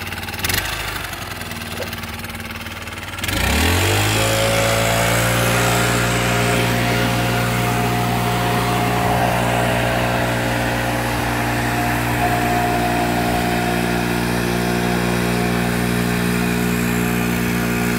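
Petrol backpack leaf blower running at a low setting, then throttled up about three seconds in with a quick rising whine to a steady high note, with the rush of its air blast. The engine is held at full speed, its thrust driving the inflatable boat.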